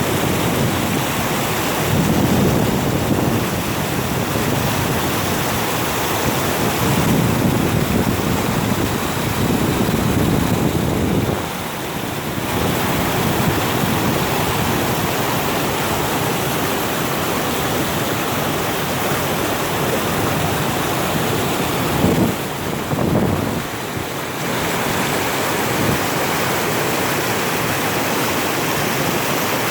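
A stream swollen by heavy rain, its water rushing steadily, with wind buffeting the microphone in low rumbling gusts now and then.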